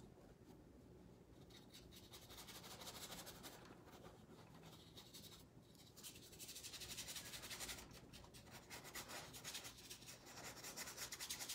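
Faint, scratchy rubbing of a dry brush scrubbing acrylic paint onto a stretched canvas, in three spells of quick back-and-forth strokes.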